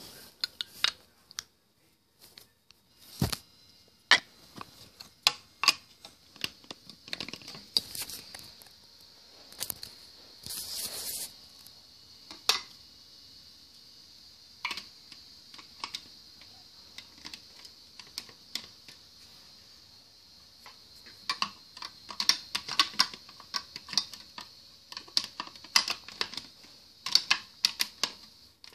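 Hard plastic toy pieces clicking and clacking irregularly, with a brief scraping rustle a third of the way in and a quick run of clicks near the end, over a faint steady high hiss.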